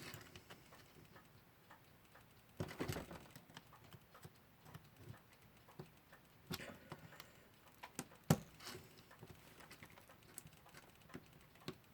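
Small, irregular metallic clicks and scrapes of a screwdriver working at the cannon pinion of a Westclox Lark alarm clock movement, which is not coming off. One sharper click stands out about two-thirds of the way through.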